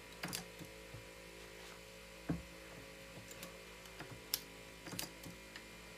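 A progressive reloading press is cycled, clicking and clunking, with one dull clunk about two seconds in and a sharp click a couple of seconds later, as a case is run up through the full-length sizing die and the neck-reaming die. A steady electrical hum runs underneath.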